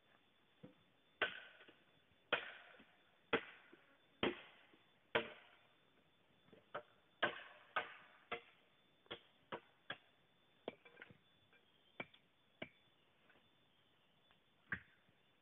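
Machete chopping bamboo: five hard strikes about a second apart, then a run of quicker, lighter chops, and one last knock near the end.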